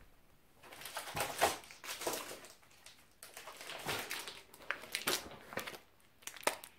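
Paper rustling and crinkling in irregular bursts as the sheets of an assembly instruction booklet are handled and turned.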